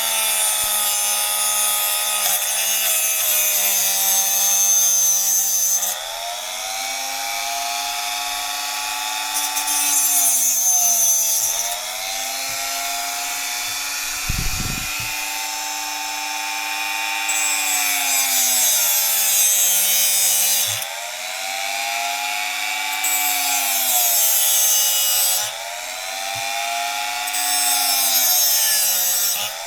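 A small power tool's motor running continuously, its pitch sagging and recovering again and again, with spells of loud gritty cutting or grinding noise as it bites into material; one short low thump about halfway through.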